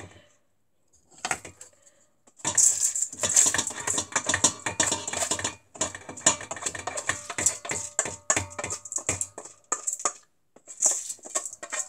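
Pan and utensil clatter as rice goes into a saucepan of water: quick runs of metallic clinks and knocks, starting about two seconds in and densest for the next few seconds, then more scattered.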